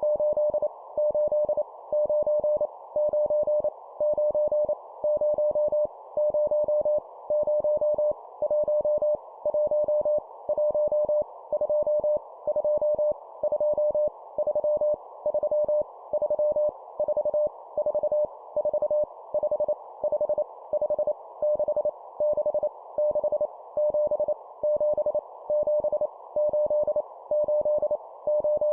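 Morse code (CW) at 25 words per minute: a single steady mid-pitched tone keyed in rapid dots and dashes, sending numbers each repeated three times, over a steady band of hiss.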